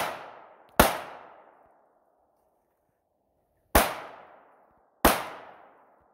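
Pistol shots: three single shots, the first about a second in and the last two close together near the end, each ringing out as it fades, with the fading tail of another shot at the start.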